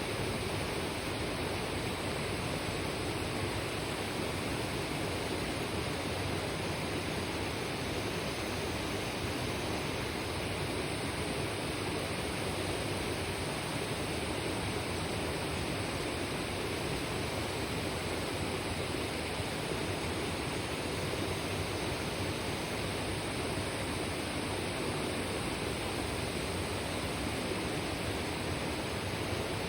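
Kibune River, a shallow mountain stream, rushing and babbling over rocks in a steady, unbroken wash of water noise.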